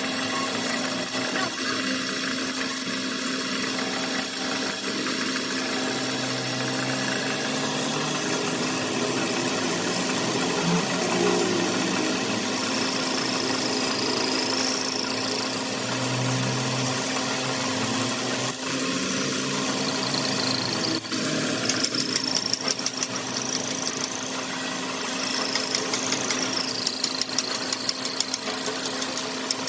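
Machine-shop machinery running with a steady hum, with brief high-pitched whines near the middle and rapid ticking in the last several seconds.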